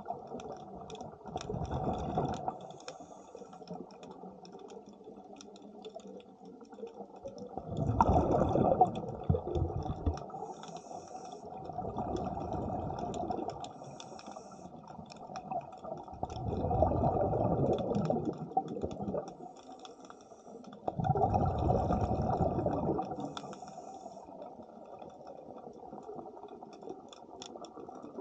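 A scuba diver breathing through a regulator underwater: rushes of exhaled air bubbles every few seconds, each lasting two or three seconds, with quieter stretches between.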